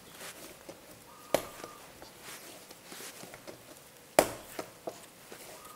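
Bread dough being kneaded by hand on a table top: soft pressing and rubbing, with two sharp slaps as the dough is thrown down, about a second in and a louder one about four seconds in. The dough no longer sticks to the surface.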